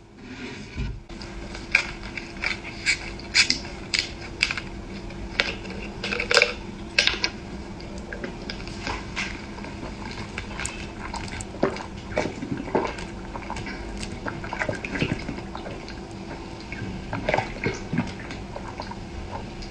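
Close-miked eating: wet chewing and slurping mixed with irregular clicks of cutlery against a plate or bowl, over a faint steady hum.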